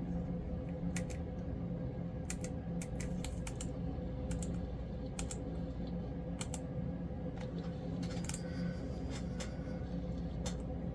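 N scale RS3 diesel model's small electric motor humming steadily as the locomotive runs on test track, with irregular light clicks from the running gear on the track.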